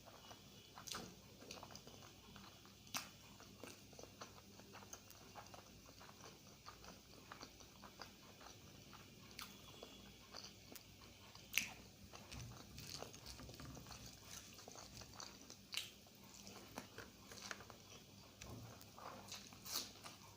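A person chewing big mouthfuls of egg curry and rice close to the microphone: faint soft chewing and mouth clicks, with a sharper click every few seconds.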